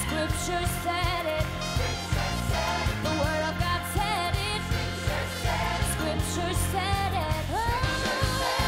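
Church worship band music: a steady beat of bass and drums with voices singing over it, one voice sliding up to a held note near the end.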